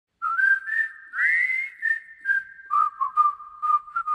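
A short whistled jingle: a melody of brief notes with one rising slide, over a light clicking beat.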